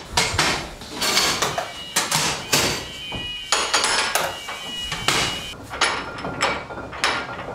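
Signal box lever frame and level-crossing gate wheel being worked by hand: a run of heavy metallic clanks and knocks, about two a second.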